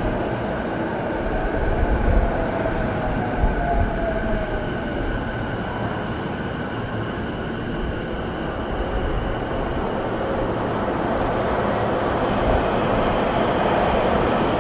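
A Keihin-Tōhoku line local train pulling into the platform and braking, its motor whine falling in pitch over the wheel and rail rumble.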